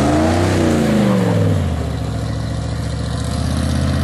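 Pickup truck engine pulling away past close by: its pitch climbs, then falls as the truck goes past, and settles into a steady drone as it drives off.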